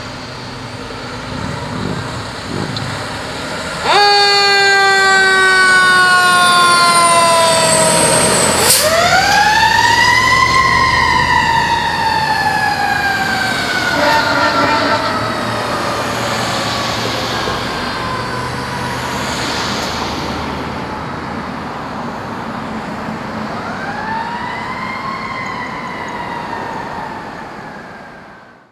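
Fire engine siren on a responding pumper. It comes in loud and suddenly about four seconds in, then sounds in long sweeps that rise quickly and fall off slowly, and grows fainter toward the end as the engine moves away.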